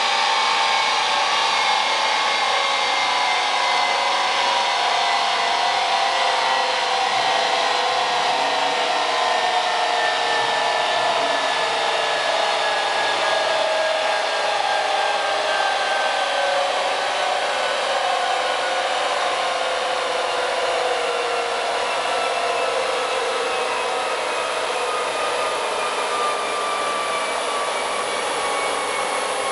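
Corvette Z06's rear tyres and driveline spinning down on chassis dyno rollers after a full-throttle run: a steady whine and rush that falls slowly in pitch as the wheel speed drops.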